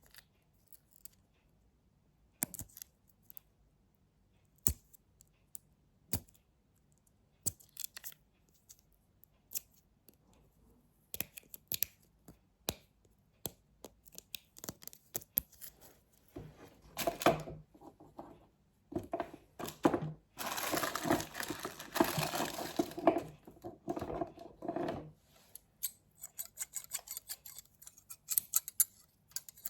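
Close-miked ASMR tapping and knocking on objects: single sharp taps a second or two apart, then about 16 seconds in a stretch of denser scratching and rustling lasting several seconds, and a quick run of light clicks near the end.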